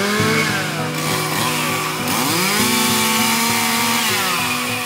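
Chainsaw engine running and revving up and down several times, as when cutting up limbs of a storm-felled tree.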